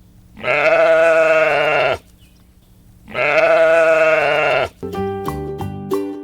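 Goat bleating twice, two long wavering calls about a second apart, followed by light children's music.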